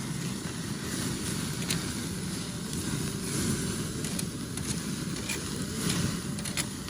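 Pork grilling over an open fire: a steady sizzle with sharp crackles now and then, over a low rumbling noise.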